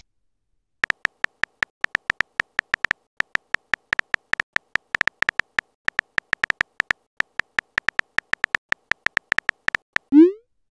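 Simulated phone-keyboard typing sound effect: a quick, uneven run of short, slightly tonal clicks, one per keystroke, about four or five a second. Near the end a short rising blip sounds as the message is sent.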